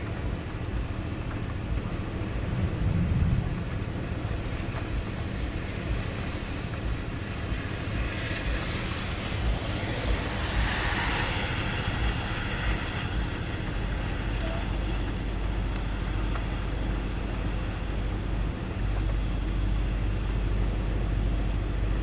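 Wind blowing across the microphone as a thunderstorm approaches, a steady low rumble of buffeting. A stronger gust builds about eight seconds in and dies away a few seconds later.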